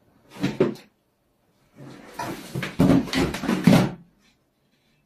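Knocking and scraping of books and objects being shoved along a wooden wall shelf by a cat, in two bursts: a short one near the start and a longer, louder one from about two seconds in.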